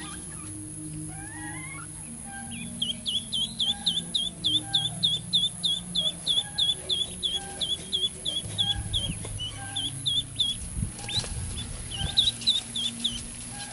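Duckling peeping: a fast, even run of short high notes, about four a second, starting about three seconds in, then a shorter burst near the end.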